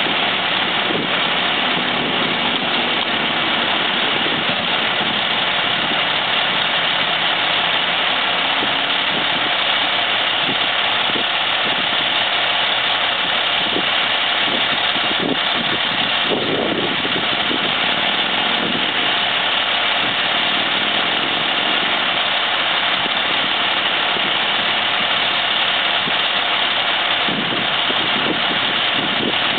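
A 2004 Pierce Quantum fire engine's diesel engine idling steadily while parked, with a constant high hiss over its running.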